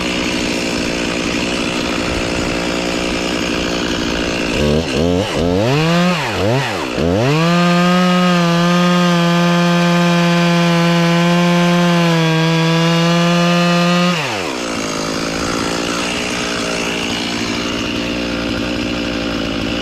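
Chainsaw engine running at low speed, revved up and down a few times, then held at full throttle at a steady high pitch for about six seconds before it drops back to a lower running speed.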